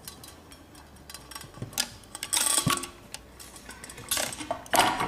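Clinks, taps and rattles of ceiling-fan housing parts and metal hardware being handled and fitted together overhead, an irregular run of small knocks that grows louder near the end.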